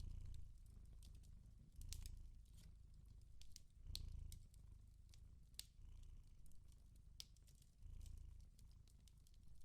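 Faint cat purring, a low rumble swelling about every two seconds with each breath, over the scattered sharp crackles of a wood fire.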